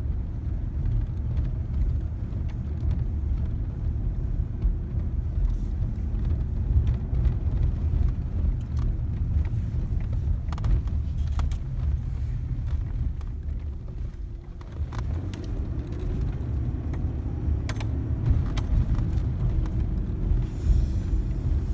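Car cabin noise while driving: a steady low rumble of engine and tyres, with a few light clicks and rattles. It eases briefly about two-thirds of the way through, then picks up again.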